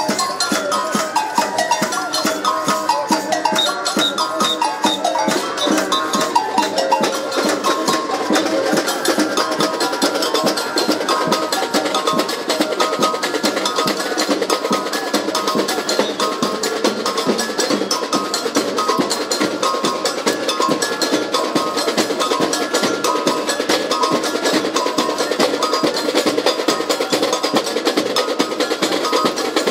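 Background music with a fast, busy percussion rhythm under a short repeating melody.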